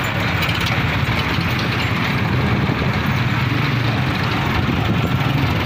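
Farm tractor engine running steadily at low revs as the tractor moves slowly, a constant low rumble without breaks.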